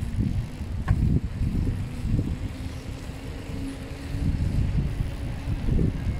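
Wind buffeting and road rumble on the microphone of a camera riding a bicycle through city traffic, with a steady low hum through the middle and a single click about a second in.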